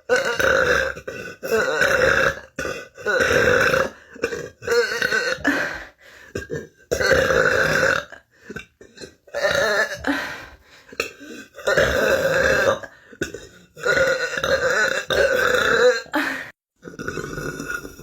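A person burping, a rapid-fire string of loud burps, each about half a second to a second long, one after another with short gaps.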